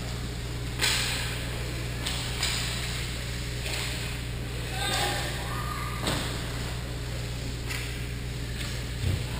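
Ice hockey play in a rink: several sharp clacks of sticks and puck, the loudest about a second in, with scattered faint shouts near the middle, over a steady low hum.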